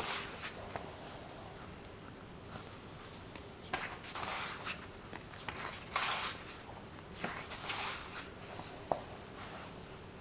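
Pages of a paperback book being turned by hand: a series of soft paper swishes and rustles, one every second or two.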